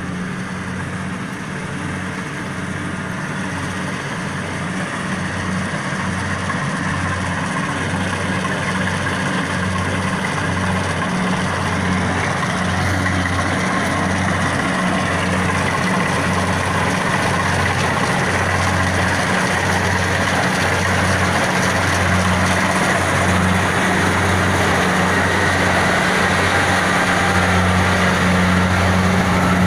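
Kubota DC70 rice combine harvester running: its diesel engine gives a steady low hum with a regular throb, mixed with broad mechanical clatter from the machinery. The sound grows gradually louder.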